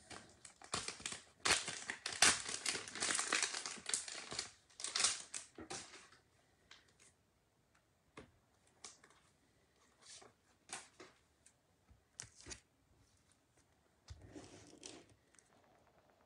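Packaging crinkling and rustling as it is handled. It is dense for the first six seconds, then thins to scattered crinkles and clicks, with another short bout near the end.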